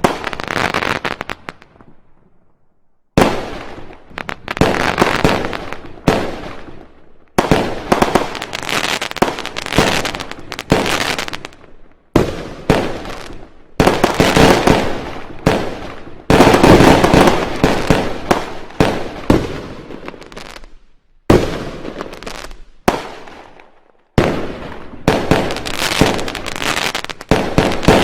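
Fireworks going off: loud bangs every few seconds, each trailing off into dense crackling that fades, with a short lull about two seconds in.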